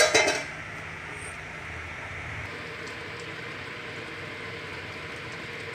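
Steady hiss of a lidded steel pot of chicken stew simmering on a gas stove, covered to cook a few minutes more.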